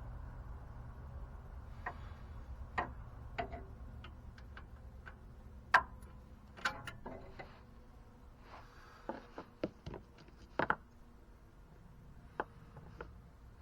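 Irregular clicks and clinks of hand tools and metal parts while the starter is being fitted to the Ford F250: a dozen or so sharp knocks at uneven spacing, the loudest about six seconds in.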